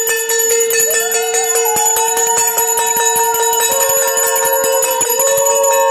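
Small brass hand bell (puja ghanti) rung rapidly and continuously during worship, a steady bright ringing. From about a second in, a fainter held tone wavers and glides up and down above it.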